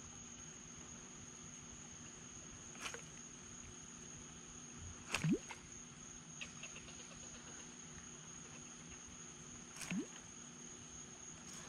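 Insects, cricket-like, keeping up a steady high-pitched drone, with a few faint sharp clicks; two of the clicks, about five seconds in and near the end, are each followed by a short rising chirp.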